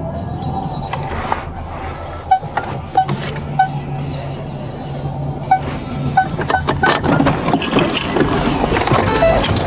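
Inside a Ford police SUV: a steady low hum with a string of short electronic beeps, then clicks and rustling as the driver's door opens and street noise comes in. The hum fades about six seconds in.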